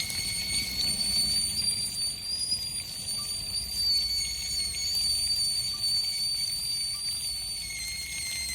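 A steady high-pitched whistle, holding one pitch with only a slight waver, over a low rumble.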